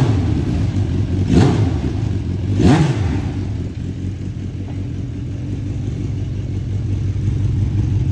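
Carbureted Suzuki engine of a dwarf race car running, blipped three times in quick succession, each a quick rise and fall in pitch, then settling to a steady idle. It sounds crispy.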